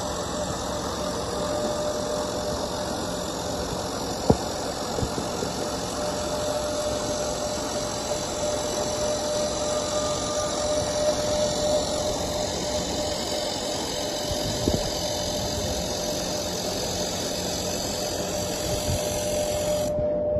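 Straight seam laser welding machine running: a steady mechanical hum with a steady whine over it and a couple of sharp clicks. A high hiss cuts off suddenly near the end.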